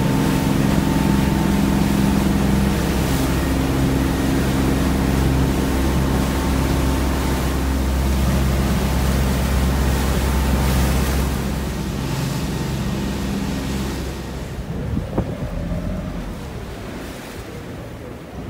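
Passenger shuttle boat's engine running steadily under way, with water rushing along the hull and wind buffeting the microphone. About twelve seconds in the engine hum drops away and the sound grows quieter as the boat slows, with a single knock near the end.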